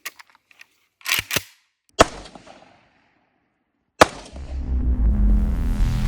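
Kalashnikov rifle being handled: faint clicks, two quick sharp metallic strokes about a second in and a sharp snap at two seconds, like the action being worked. After a short gap, a sharp bang at four seconds is followed by loud, continuous noise with a deep rumble.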